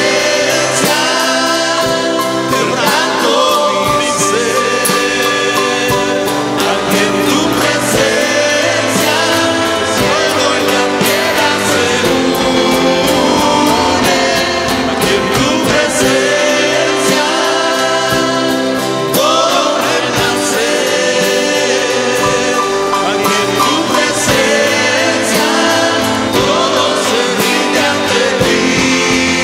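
Christian worship song with voices singing over instrumental accompaniment, at a steady level throughout.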